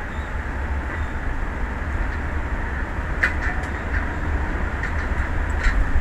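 Steady rush of wind and choppy open sea with a heavy low rumble, broken by a few short sharp clicks, about three seconds in and again near the end.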